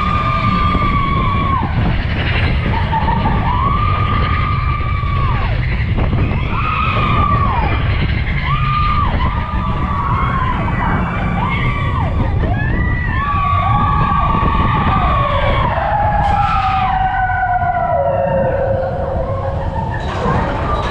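Mine-train roller coaster rumbling along its track, with its steel wheels squealing again and again. Each squeal holds at one high pitch and then drops off, and a longer squeal slides slowly down in pitch near the end.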